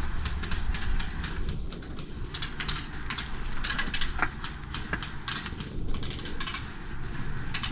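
Irregular sharp clicks and snaps, some close together and some spaced out, over a low rumble.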